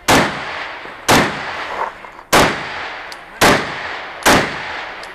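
Semi-automatic AR-style rifle fired five times at close range, at uneven intervals of about a second, each shot followed by a short echoing decay.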